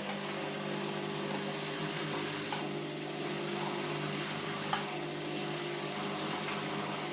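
Candy GODF800 washing machine's drum turning in the first spin, its motor humming steadily, with one small click about two-thirds of the way through.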